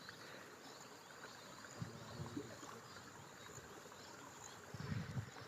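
Faint outdoor ambience with a steady insect hum, broken by a few soft low thumps, a cluster of them near the end.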